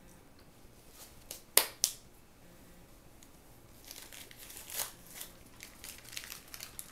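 Paper napkin crinkling and rustling as it is pulled out and handled, from about four seconds in. Before that come two sharp clicks about a quarter second apart, the loudest sounds here.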